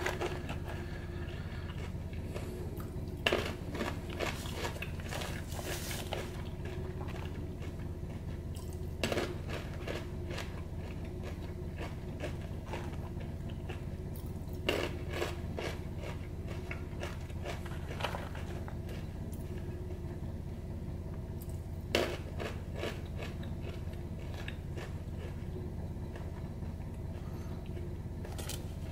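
A thin clear plastic tub of wasabi-coated peanuts being handled: a handful of sharp clicks and crinkles of the plastic and shifting nuts, spaced several seconds apart, over a steady low hum.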